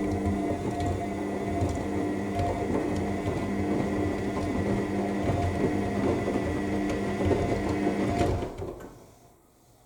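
AEG L7FE7461BI front-loading washing machine tumbling its drum in the main wash: a steady motor hum and thin whine over the churning of wet laundry. It winds down and stops about eight seconds in, as the drum pauses between turns.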